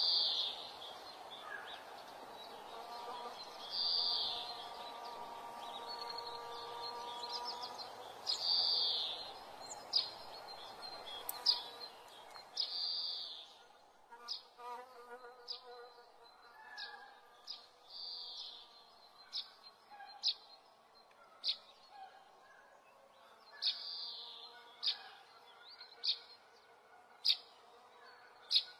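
Repeated short, high chirps, about one every second or two, from birds or insects outside, with a faint steady tone underneath during the first half.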